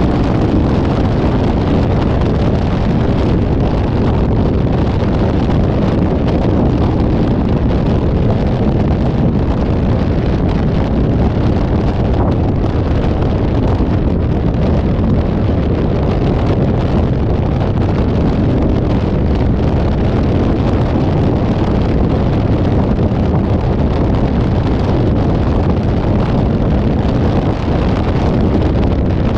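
Steady wind buffeting the microphone of a moving vehicle's camera, mixed with low road and engine rumble, unchanging throughout.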